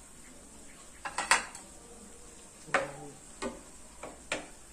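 Kitchenware clatter: a small bowl and spoon set down with a sharp clink, then a plastic spoon knocking and scraping in a nonstick frying pan as ground pork is stirred. There are about five short knocks, the loudest about a second in.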